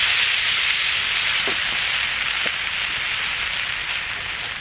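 Freshly added passata sizzling in a large steel frying pan over a campfire: a steady hiss that slowly dies down as the cold sauce takes the heat out of the pan.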